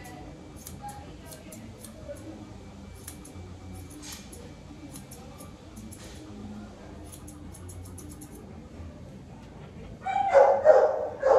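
Grooming shears snipping at a Labradoodle's muzzle, small crisp clicks in short clusters. Near the end the Labradoodle barks loudly, a couple of times.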